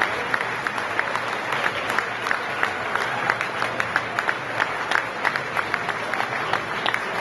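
A large audience applauding steadily, with many separate sharp hand claps standing out from the wash of clapping.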